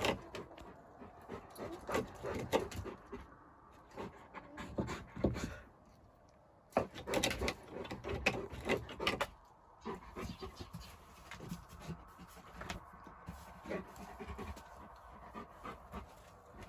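Large dog, a Moscow Watchdog, panting in quick breaths that come in bursts of a few seconds with short pauses between.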